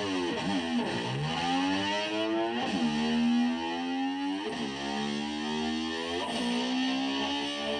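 Distorted electric slide guitar imitating a motor scooter. A held, buzzing note repeatedly swoops down and slides back up, like an engine being revved and dropping back.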